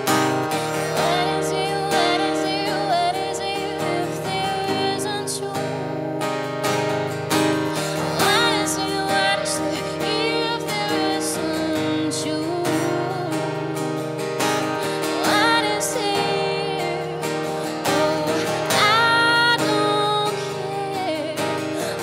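Acoustic guitar strummed while a woman sings long, wavering held notes.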